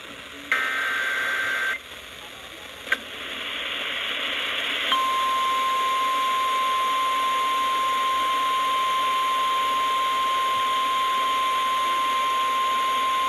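Emergency Alert System broadcast on a weather radio: a burst of screechy SAME header data tones about half a second in, a click near three seconds and rising static hiss. About five seconds in, the steady single-pitch NOAA Weather Radio warning alarm tone starts and holds over the hiss, announcing a new warning.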